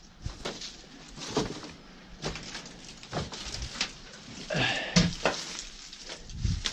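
Footsteps crunching and rustling through brush and debris in irregular steps, with a short grunt about two-thirds of the way through.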